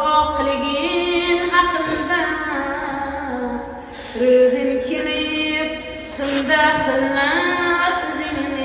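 A solo voice singing a slow lament, with long held notes that bend and slide between pitches.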